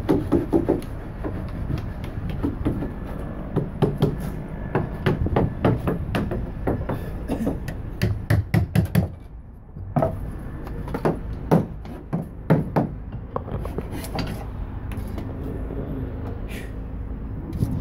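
Boat-builders' hand tools knocking on timber: irregular hammer strikes, some in quick runs, over a steady low rumble.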